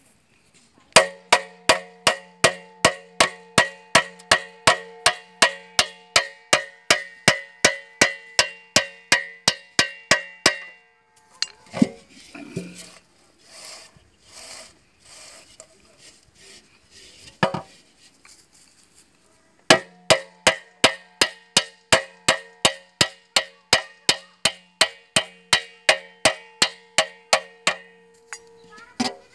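Hammer tapping on an aluminium cooking pot (dekchi) at about three strikes a second, setting the nails that fix an aluminium patch over its leaking bottom; each strike leaves the pot ringing. Two long runs of strikes, with a pause of several seconds in the middle broken by a few single knocks.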